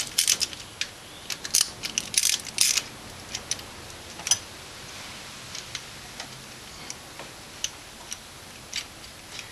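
Sharp, irregular metallic clicks and taps from hand tools working on a small-block V8's valve gear while new valve springs are fitted. They come thick and fast for the first three seconds or so, then thin out to scattered single clicks.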